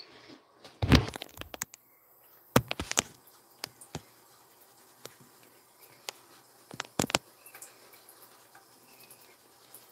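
Sharp knocks and thumps from a phone being handled and repositioned on a bathroom counter, the loudest about a second in, a cluster around three seconds and a pair near seven seconds. Between them, a thin stream of tap water runs faintly into a sink while a cat drinks from it.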